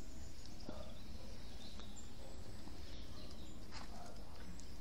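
Outdoor background noise: a steady low rumble with a few faint chirps and ticks.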